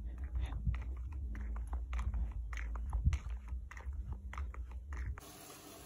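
Footsteps in slide sandals on paving slabs: irregular clicks and scuffs over a low steady rumble, which stop abruptly about five seconds in.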